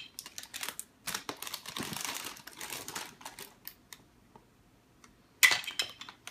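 Lego packaging being handled: plastic bags and pieces giving rapid small clicks and crinkles, a short pause, then a louder rustle of clicks near the end.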